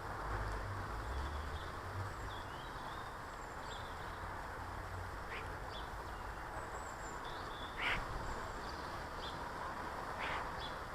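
Garden birds calling with short scattered chirps, then two louder, harsher calls that fall in pitch about 8 and 10 seconds in, over a steady background hiss and a low rumble in the first few seconds.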